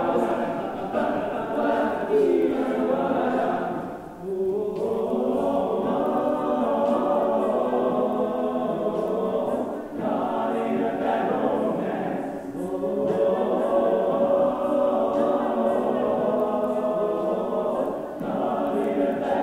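All-male a cappella group singing in close harmony, many voices holding chords together in phrases, with a short break about four seconds in.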